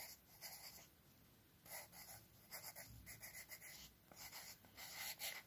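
Pen writing on a paper textbook page: faint scratching in a series of short strokes with brief pauses as a word is handwritten.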